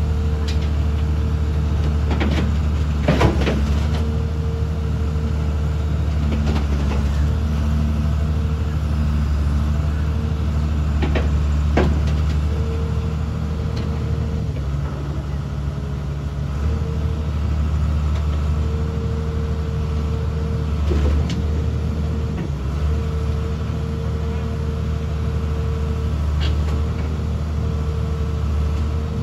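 XCMG XE215C crawler excavator's diesel engine running steadily under light load, with a faint whine that comes and goes and a few sharp metallic knocks.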